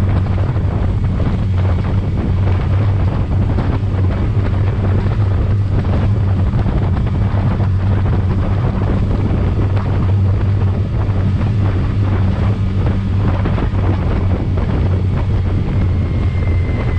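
15 hp outboard motor running steadily at full throttle, hitting its rev limiter, with wind buffeting the microphone and water rushing past the hull.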